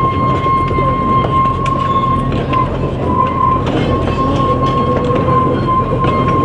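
Loaded wooden peat wagons of a narrow-gauge field railway rolling past on the track: a steady rumble of wheels on rail with scattered clicks and clanks, and a steady wheel squeal running through it, wavering slightly a few seconds in.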